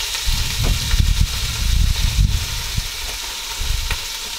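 Barramundi chunks frying in oil in a cast-iron camp oven, a steady sizzle, with uneven low rumbling and a few soft knocks over it.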